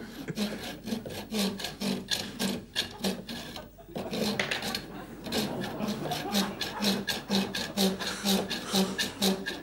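Small orange-handled hand saw sawing back and forth, a rasping stroke about twice a second, with a brief pause about three and a half seconds in.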